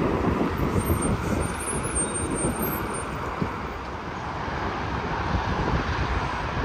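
Interstate highway traffic going by: a steady road noise of tyres and engines that eases off about four seconds in and builds again near the end.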